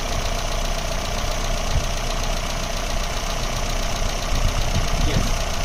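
Mercedes-Benz M102 2-litre eight-valve four-cylinder engine idling steadily on its home-built electronic fuel injection, with a steady high whine running through it.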